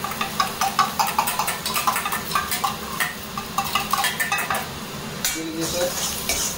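A metal spoon scraping and tapping chopped garlic out of a steel cup into a wok of hot oil, with many quick clicks and knocks. The garlic sizzles in the oil, and near the end a spatula stirs and scrapes it around the wok.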